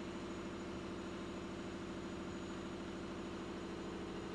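A steady low mechanical hum with a fine, even flutter, unchanging throughout, like a fan or other machine running in the room.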